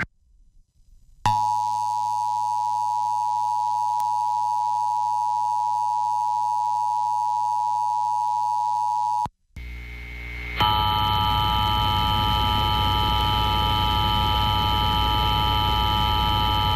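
Emergency Alert System attention signal: the steady two-tone alert (853 and 960 Hz) starts about a second in and cuts off sharply after about eight seconds. After a brief gap a second alert tone starts, harsher, with hiss and a low hum under it, as the next station's test begins.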